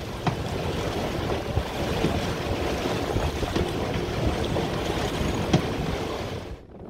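Wind buffeting the microphone and water rushing along the hulls of a sailing catamaran under way, with a few sharp clicks; the rush drops away suddenly near the end.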